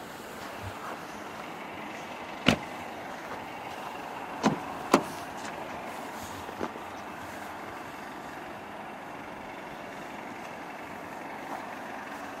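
A Mercedes-Benz E200's turbocharged four-cylinder engine idles steadily in the background. Over it come a few sharp clicks and knocks from handling the car: three loud ones a couple of seconds in, the last two about half a second apart, and a fainter one later.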